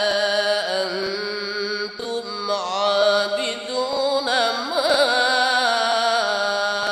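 A man's voice in slow, melodic Quran recitation, drawing the words out into long held notes with ornamented turns in pitch.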